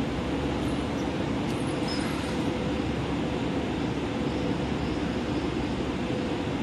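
Odakyu Romancecar MSE electric train moving slowly alongside the station platform: a steady low rumble with a faint steady hum.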